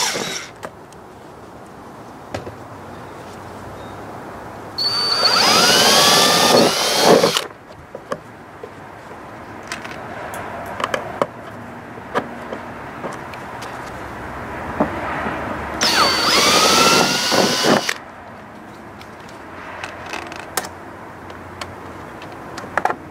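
Cordless drill backing screws out of the aluminum trailer skin, run twice for about two to three seconds each, its motor pitch sliding as it speeds up and slows. Light clicks of handling between the runs.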